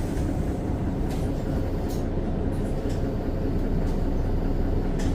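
Mercedes-Benz Citaro O530 bus under way, its Daimler OM906 6.4-litre inline-six diesel running with a steady low rumble and a faint steady whine, heard inside the cabin. A few light rattles click through it.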